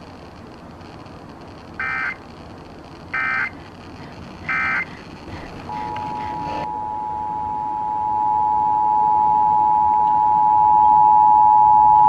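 Emergency Alert System SAME header: three short bursts of data screech about a second apart, then the two-tone EAS attention signal starting about six seconds in and holding steady while growing louder. It is the opening of a broadcast fire warning alert.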